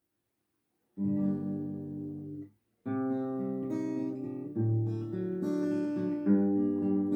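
Acoustic guitar playing a song's introduction with no voice: sustained chords come in about a second in, break off briefly near two and a half seconds, then carry on.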